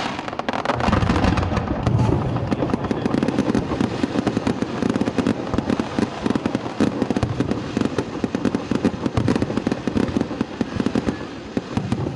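Fireworks display: a dense, continuous barrage of rapid bangs and crackles with no break.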